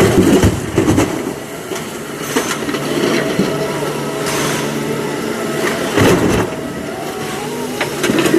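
SANY excavator's diesel engine running steadily under load, with loud crashes of rock and stone near the start, about a second in, and again around six seconds in.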